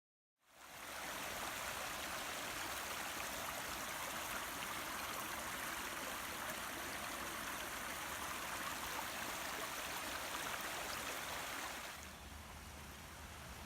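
Woodland stream running over rocks, a steady rushing of water that fades in at the start. About twelve seconds in it drops to a quieter, softer flow.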